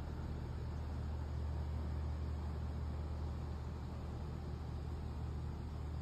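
Steady low background hum over a faint even hiss, with no distinct events.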